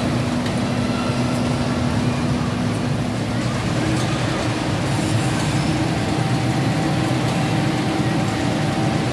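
Steady ambient din of a large indoor amusement hall: a low rumble with a murmur of voices. A steady hum runs through it and changes pitch a few seconds in.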